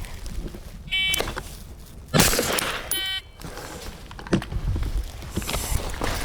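A shot timer beeps, and about a second later a single suppressed shot from a 5.56 AR-15 rifle with a Huxworks Flow suppressor cracks out. A second identical beep follows two seconds after the first, marking the end of the 2-second par time.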